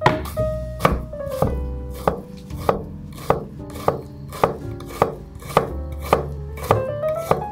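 Chef's knife dicing a peeled onion on a wooden cutting board: steady, evenly paced chops, a little under two a second, over soft background music.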